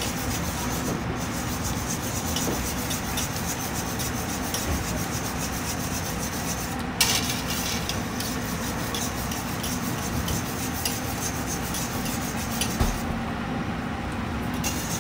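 Wire whisk stirring polenta in a stainless steel pot, a steady run of rhythmic scraping strokes against the pot, with one sharp knock about halfway. The whisking pauses briefly near the end.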